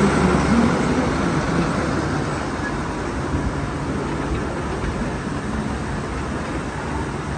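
Slow-running forest-railway trolley train, its diesel locomotive's engine loudest at the start and fading within about the first second, leaving a steady rumble of running.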